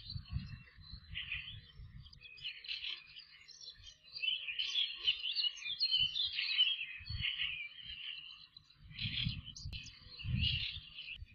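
Birds chirping and twittering busily and without a break, with low rumbling at the start and again near the end.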